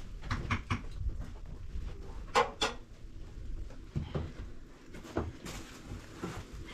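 A scatter of short knocks and clatters from things being handled, the loudest a sharp double clack about two and a half seconds in.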